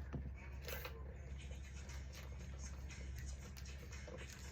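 Quiet room tone: a steady low hum with scattered faint clicks and rustles.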